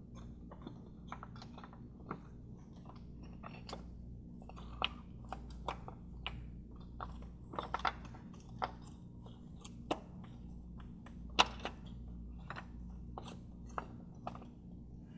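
Irregular small clicks and clinks as a VW 2.5L five-cylinder engine's vacuum pump is wiggled and worked loose from the cylinder head by a gloved hand, metal knocking lightly on metal; the sharpest click comes about eleven seconds in.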